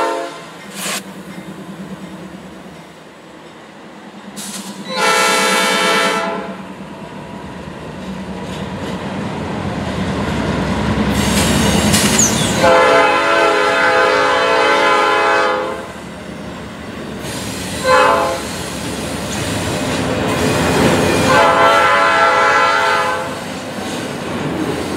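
Nathan P5 horn on a Norfolk Southern Dash 9 (C44-9W) locomotive sounding the grade-crossing signal, long, long, short, long, while the double-stack intermodal train rolls past with wheels clacking over the rail joints.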